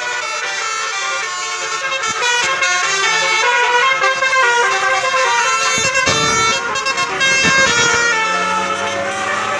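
Basuri 'telolet' multi-tone bus horn playing a tune of held notes that change in steps, with a low rumbling noise for about two seconds past the middle.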